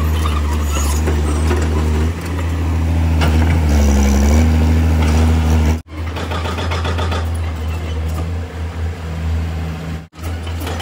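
Tata Hitachi EX110 excavator's diesel engine running steadily as the machine digs. About four to five seconds in, its note dips and recovers under load. The sound cuts out abruptly twice.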